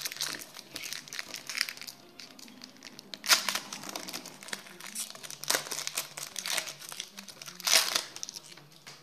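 Foil trading-card packet (Topps Champions League) being torn open and crinkled by hand: irregular crackling rustles, the loudest about three seconds in, again at about five and a half seconds and near the end.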